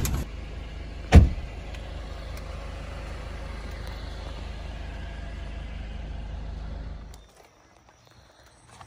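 Jeep Wrangler JL driving, heard from inside the cabin: a steady low engine and road rumble, with one sharp thump about a second in. The rumble cuts off suddenly about seven seconds in.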